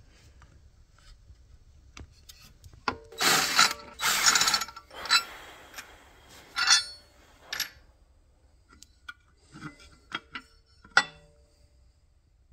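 Hand ratchet working bolts on the engine in several short bursts of clicking, then a few sharp metal clinks as tools and parts are handled.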